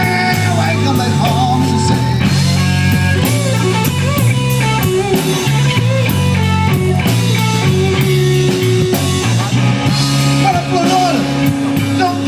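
Live blues band playing an instrumental passage of a slow blues: electric guitar lead with bent notes over electric bass and drum kit.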